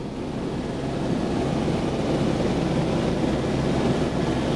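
Helicopter engine and rotor noise heard from inside the cabin: a steady low drone under a rushing, wind-like noise that grows louder over about the first second.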